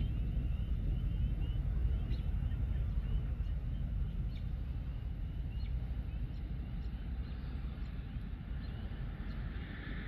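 Dusk field ambience: a steady low rumble under a run of short, high, rising chirps repeated several times a second, which fade out about two-thirds of the way through.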